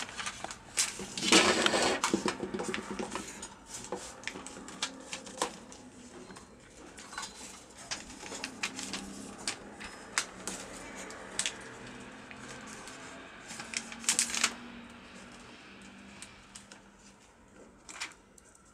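Hard plastic toy parts being handled: scattered clicks, taps and rustling as the wings of a plastic doll are taken off and new ones fitted by a harness, with a denser patch of rustling about a second in.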